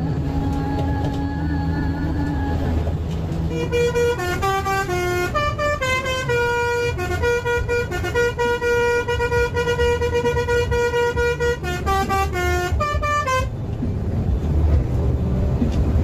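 Bus telolet horn playing a multi-note tune for about ten seconds, starting a few seconds in and cutting off sharply near the end, over the steady low drone of the bus on the road.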